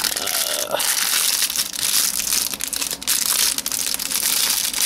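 Plastic packing wrap crinkling and crackling in a dense run of small crackles as it is handled and pulled off a parcel's contents.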